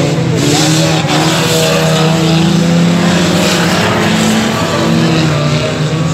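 Several banger race cars' engines running and revving together on the track, the pitches of the different engines rising and falling over each other, with tyre and track noise underneath and a sharp knock about a second in.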